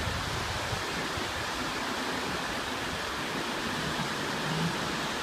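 Steady rushing wash of surf breaking on the beach, with no distinct events.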